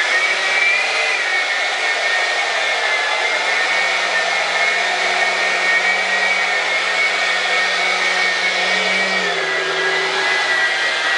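RC jet's Dr. Mad Thrust 68mm 10-blade electric ducted fan running while it taxis, giving a steady high whine over a rush of air. The pitch wavers slightly and dips a little near the end as the throttle eases.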